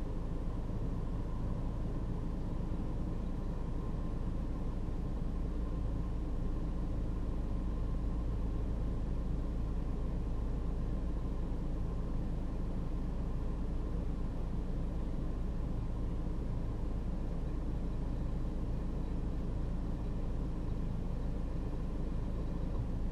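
Steady low rumble of an idling vehicle engine, with a faint constant whine above it.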